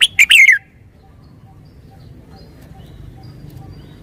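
Red-whiskered bulbul singing one short, loud song phrase of several quick whistled notes, the last sliding down in pitch, lasting about half a second at the start; after it only a faint low background hum remains.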